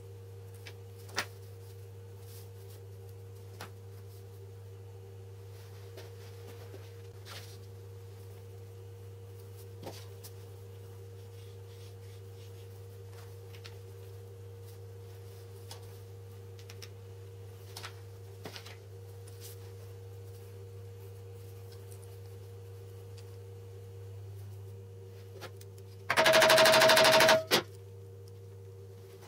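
Light clicks and taps of small wooden and metal jig parts being handled and fitted together over a steady low hum. Near the end comes a loud burst of machine noise with a steady tone, about a second and a half long, cutting off sharply.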